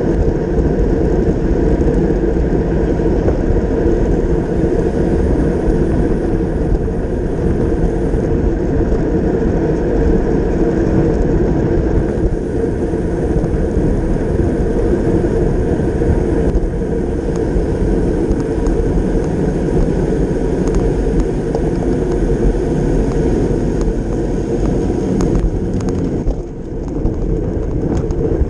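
Steady rush of wind over a bike-mounted action camera's microphone while riding at race speed in a road-cycling bunch. It eases briefly near the end.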